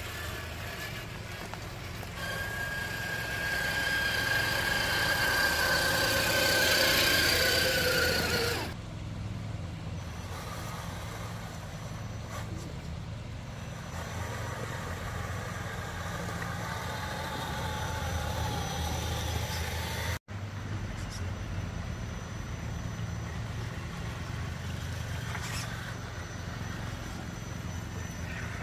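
High whine of a radio-controlled model's electric motor, growing louder over several seconds and cutting off sharply. A lower, wavering motor whine follows later, over a steady low rumble.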